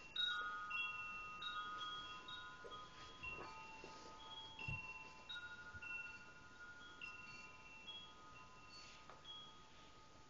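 Chimes ringing: clear high notes struck one after another, each ringing on and fading slowly so that several overlap.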